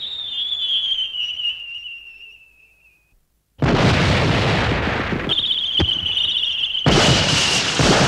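Cartoon sound effects: a high whistle sliding slowly downward and fading away. After a short gap comes a loud explosion-like rumble that goes on for several seconds, with a wavering high whistle over it in the middle.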